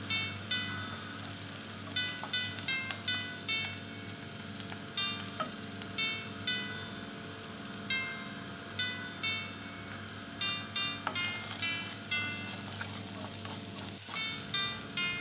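Sliced small onions frying and sizzling in oil in an aluminium kadai, stirred now and then with a wooden spatula. Over it runs a light background tune of short, bright, tinkling notes in quick little groups.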